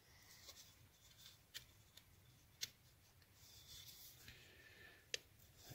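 Faint handling noise from a hand working inside a Triumph four-speed gearbox's aluminium shell while fitting a greased thrust washer over its alignment pin: light rubbing and a few small sharp clicks of metal parts.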